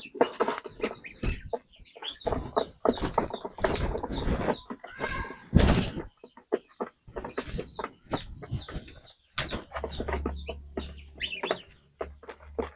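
Chickens clucking and giving many short, high, falling peeps, over busy scratching and clattering noises. A low hum comes in for a couple of seconds near the end.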